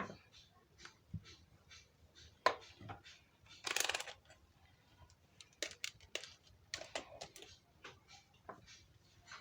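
Small clicks and taps from handling a Jio feature phone as it is put back together for testing, with a sharper click about two and a half seconds in and a short scraping rustle about four seconds in.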